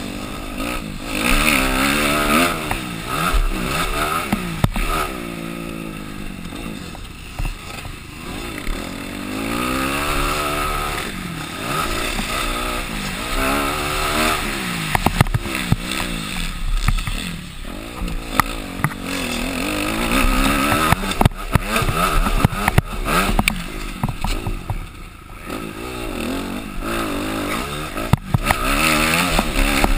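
Motocross dirt bike engine revving up and dropping off again and again as the rider accelerates and backs off through the corners and jumps of the track. Sharp knocks and clatter come through now and then as the bike goes over the bumps.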